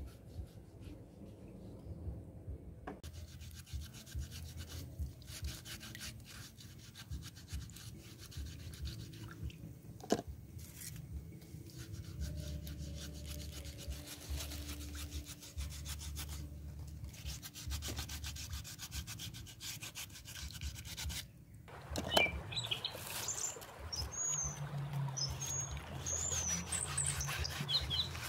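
Shellfish being scrubbed by hand in a basin of water: a steady scratchy rubbing of shell, with water sloshing and a sharp click about ten seconds in. Birds chirp from about three quarters of the way through.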